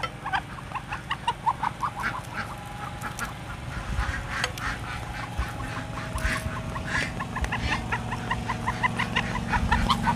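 Domestic duck calling in a long run of short repeated notes, quickening toward the end, over a low steady hum that sets in about four seconds in.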